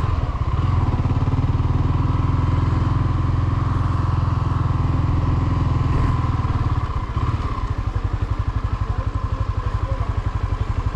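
Small-displacement motorcycle engine running steadily, then settling to an idle about seven seconds in, its firing pulses heard as an even throb.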